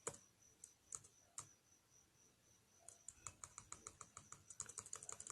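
Typing on a computer keyboard: a few separate keystrokes, then a quick run of typing from about three seconds in.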